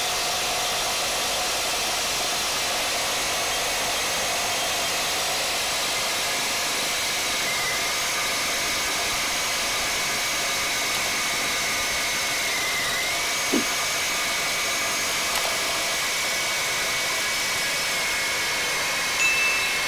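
Milwaukee Super Sawzall reciprocating saw running steadily at full speed, its Torch Nitrus carbide-tooth blade sawing through half-inch steel plate with a steady high whine. There is a single short click about two-thirds of the way through.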